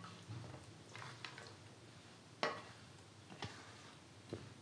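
Raw potato sticks being pushed off a ceramic plate into a glass bowl of water, giving about five light, scattered clicks and knocks, the sharpest about two and a half seconds in.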